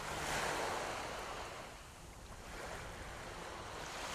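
Sea waves washing in and out: the surf swells about half a second in, falls back around two seconds, and builds again near the end.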